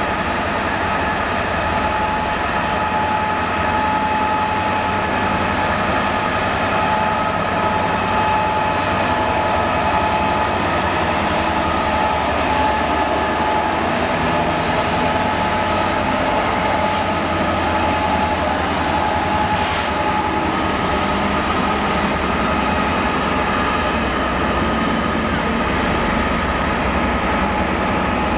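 EWS Class 66 diesel-electric freight locomotive passing with a long train of covered wagons, its engine running and the wagons rolling over the rails in a steady noise with a few held tones.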